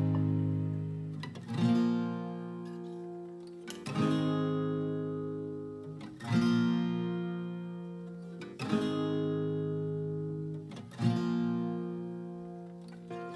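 Acoustic guitar music: slow strummed chords, one about every two and a half seconds, each left to ring and fade before the next.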